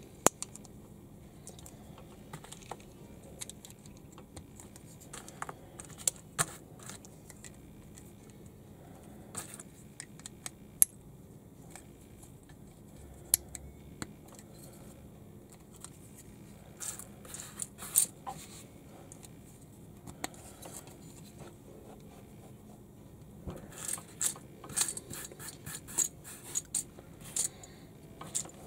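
Small Lego-compatible plastic bricks clicking as they are handled and pressed together: scattered single clicks, a short flurry past the middle, and a busy run of rapid clicks near the end.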